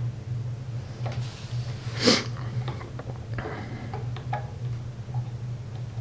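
Soft clicks of the front-panel memory buttons on a KORAD KKG305D bench power supply being pressed, with the beep turned off, over a steady low hum. A short, loud hiss comes about two seconds in.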